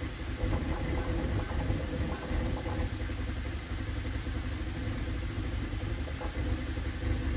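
Bambu Lab A1 3D printer running a print: stepper motors whirring as the toolhead and bed move, over a steady hum from its fans.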